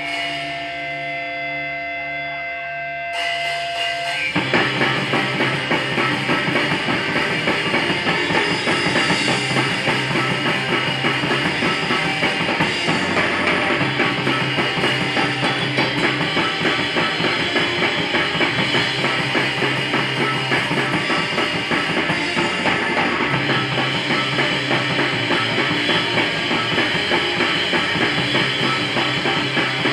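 Live crust punk band with electric guitar, bass and drum kit. Held notes ring out at first, then drums and the full band come in about four seconds in and play fast and dense.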